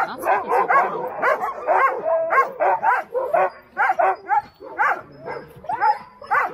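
A yard of Alaskan husky sled dogs barking and yipping over one another: short calls that rise and fall in pitch, several a second, without a break.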